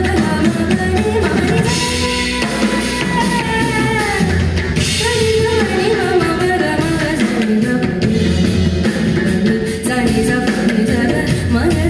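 Live Indian fusion music: a woman singing sliding, ornamented phrases over a drum kit and percussion.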